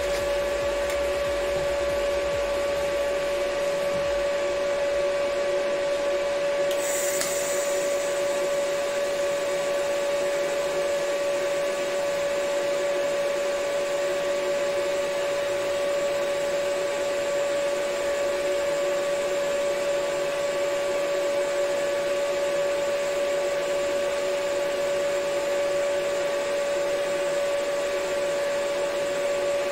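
TIG welding on a steel tube: the welding machine gives a steady hum with a constant whine and a hiss from the arc, with a brief high crackle about seven seconds in.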